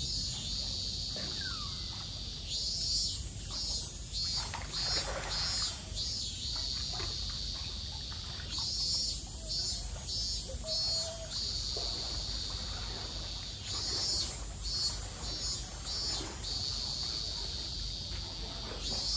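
Cicadas singing: a steady high buzz that swells and pulses in waves, over a low background rumble.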